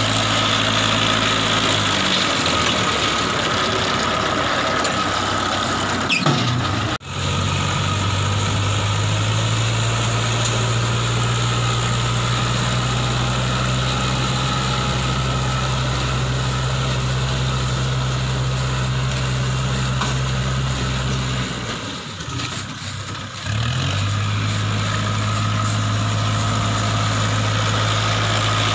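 Engine powering a round paddy-straw baler, running with a steady low hum. It briefly drops away twice, about seven seconds in and again past the twenty-second mark, before picking back up.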